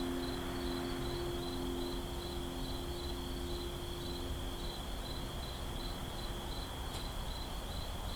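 Night-ambience bed of crickets chirping in a steady pulsing rhythm, about two or three chirps a second. The last low harp notes ring on and fade out over the first few seconds.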